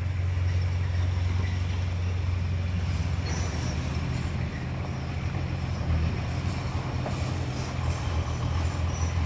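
Diesel engine of a loaded dump truck running steadily at low speed as the truck maneuvers on a dirt lot, a constant low hum.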